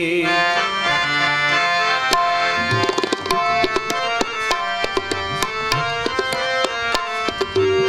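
Harmonium playing the melody with tabla accompaniment, an instrumental interlude in Sikh shabad kirtan. The last sung note fades out at the very start, and the tabla strokes come thick and fast from about two seconds in.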